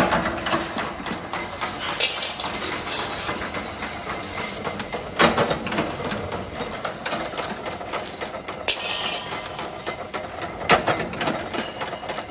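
Workshop machinery running steadily, with a few sharp clanks of steel parts.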